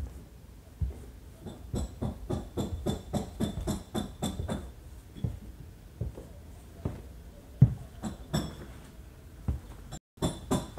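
Footsteps going down a staircase, a few steps a second, with a light clink on many of them.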